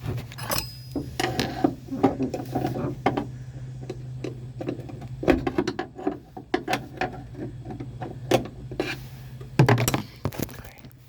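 Hand tools and metal parts being handled while a truck door's hinge spring is worked into place with a screwdriver: scattered clicks and knocks, a louder knock about five seconds in and another near the end, over a steady low hum.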